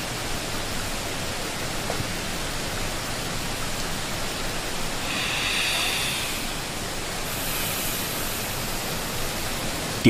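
Steady rushing noise like running water, with a faint high shimmer in the second half.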